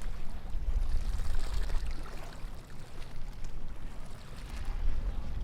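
Beach ambience: a low, uneven rumble under a faint haze of higher background sound.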